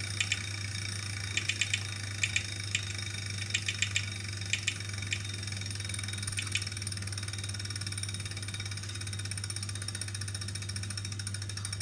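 Wahoo KICKR 2018 smart trainer running with a steady low hum, overlaid with irregular sharp clicks in small clusters that thin out and stop about seven seconds in. An unwanted noise that the owner treats as a fault.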